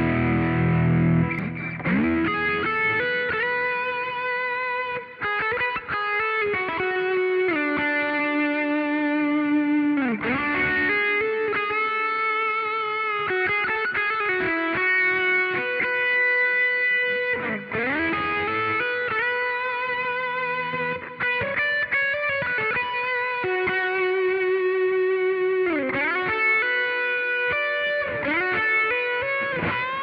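Electric guitar played through an amplifier with some overdrive: a chord rings at the start, then a slow melodic single-note lead with sustained notes, vibrato and several string bends.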